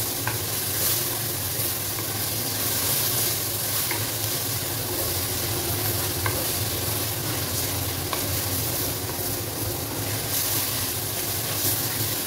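Spiced onion-tomato masala sizzling in oil in a clay handi as it is stirred with a wooden spatula, a steady frying hiss with a few light taps of the spatula against the pot.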